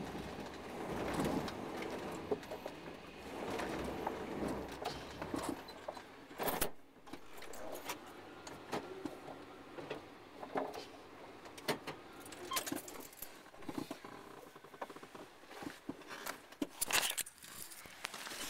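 Irregular clicks, small rattles and rustling inside a car cabin, with a steadier rushing noise over the first five seconds or so.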